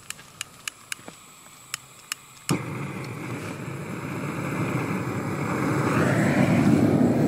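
A run of sharp clicks, about four a second. About 2.5 s in, a propane torch on a hose from a propane tank starts abruptly with a loud, steady rush that grows louder as it is played on split logs to light a campfire.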